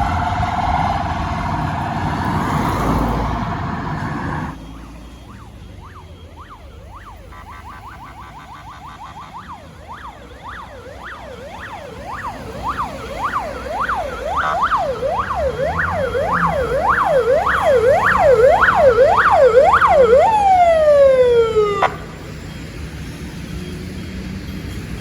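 Police car electronic siren on yelp, wailing up and down about twice a second and growing louder. It then winds down in one long falling tone and cuts off a little before the end. Before that, in the first four seconds or so, a different and denser siren setting (the phaser) sounds over road noise and stops abruptly.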